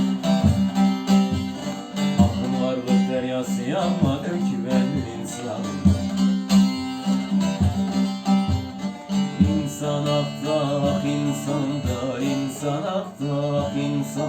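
A plucked string instrument playing the instrumental introduction to a Turkish folk song, repeated plucked strokes and a melody over a steady low drone note.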